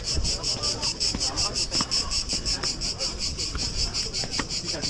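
Insects calling in a loud, even pulse of about six or seven beats a second, with faint scattered clicks underneath.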